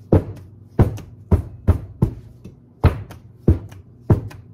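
A metal tube cake pan full of batter being rapped down on a towel-covered counter: about eight dull thumps roughly every half second, each with a short ring. This is the batter being settled in the pan.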